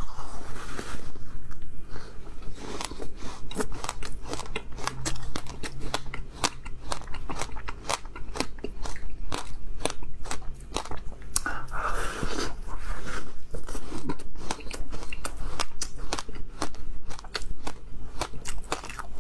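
Close-miked biting and crunching of a block of ice topped with frozen passion fruit pulp, chewed with a dense run of sharp cracks and crackles.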